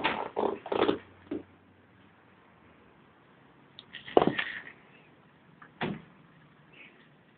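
A few dull knocks and rustles of handling close to the microphone: a quick run of them at the start, then single louder ones about four and six seconds in.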